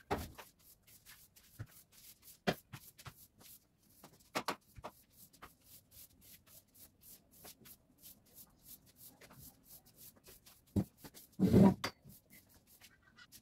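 Scattered light clicks, taps and knocks of household items being handled and moved about a room, at an irregular pace. Near the end comes a louder bump and rustle close to the microphone.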